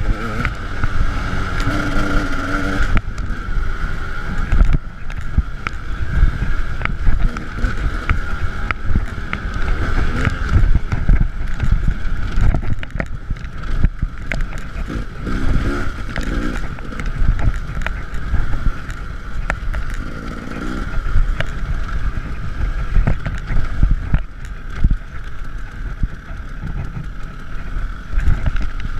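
KTM 300 EXC single-cylinder two-stroke dirt bike engine running under load while riding over rough grass, picked up by a handlebar-mounted camera, with wind buffeting and frequent knocks from the bumps.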